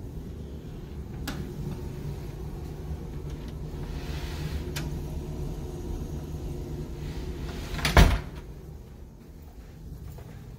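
A closet door knocks shut about eight seconds in, the loudest sound, after a few light clicks of doors being handled, all over a low steady hum.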